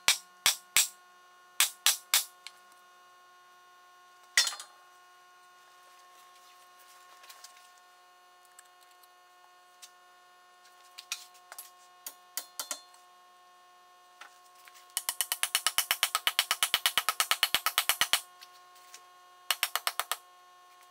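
A mallet knocking a wooden wedge into the eye of a double-bit axe head to fix it on its new wooden handle. The sharp knocks come in short groups, with a single loud one about four seconds in. Near the end there is a fast unbroken run of about ten knocks a second.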